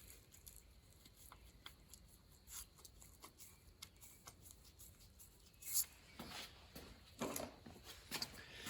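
Faint, scattered light clicks and scrapes of a new spark plug being threaded by hand into an Allis-Chalmers D17 engine's cylinder head, with a couple of slightly louder scrapes about six and seven seconds in.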